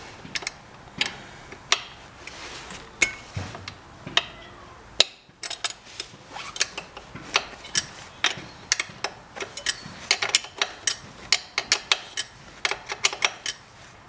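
A small metal hand tool clicking and ticking against a motorcycle rear brake caliper as a pin or bolt is worked loose. The clicks come irregularly and sparsely at first, then thicken to several a second about halfway through.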